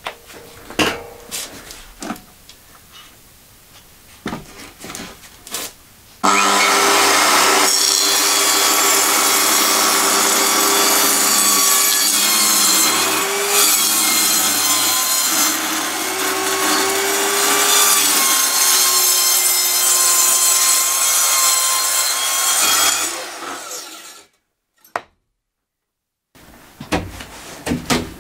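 Handheld circular saw cutting through a sheet of OSB board: it starts suddenly about six seconds in, after a few knocks, and runs steadily with a motor whine through the cut for about seventeen seconds before winding down. A few knocks come near the end.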